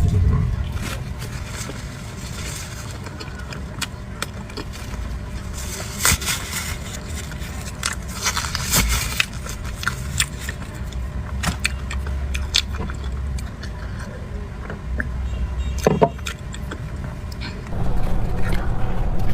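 Eating sounds from cream puffs and cream-filled towel rolls: biting and chewing, with scattered short clicks and scrapes over a low steady background hum.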